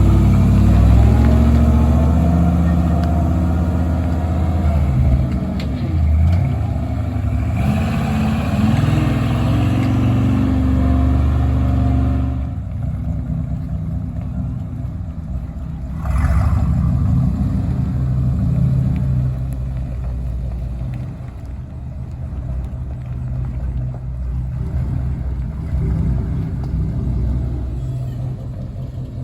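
Large vehicle engine running under changing load, its pitch rising and falling. It is loudest for the first twelve seconds, then drops back, with a short surge about sixteen seconds in.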